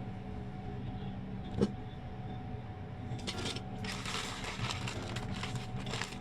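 Plastic packaging crinkling and rustling as a boxed figure is unwrapped, starting about halfway through, after a single sharp click; a steady low hum runs underneath.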